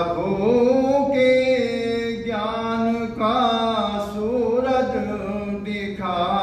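A man singing a Hindi devotional bhajan into a microphone, in long drawn-out notes that slide up and down between phrases.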